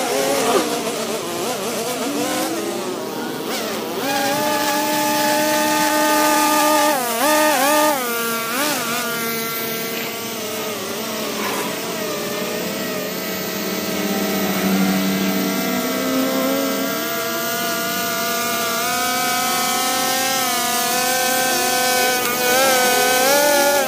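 Two-stroke gas string trimmer running at high revs while cutting grass, its engine pitch wavering up and down and rising about four seconds in.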